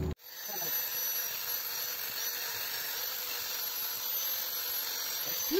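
Angle grinder motor and disc running steadily with a high-pitched whine, coming up to speed just after it starts.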